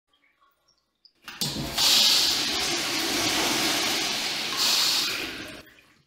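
Urinal in a tiled public restroom flushing: a rush of water starts about a second in, holds steady with a second surge near the end, then dies away. The tiled room adds natural reverb.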